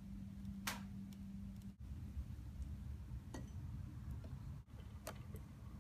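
Three faint, sharp metallic clicks as the interchangeable barrel of a Sako Quad Range rifle is handled and set into the stock, the sharpest under a second in. A low steady hum sits under the first couple of seconds and then stops.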